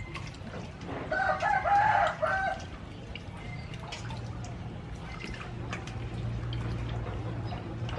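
A rooster crowing once, about a second in, the loudest sound. Under it, small splashes and rubbing of hands washing a fish in a steel bowl of water, with a low steady hum starting about halfway through.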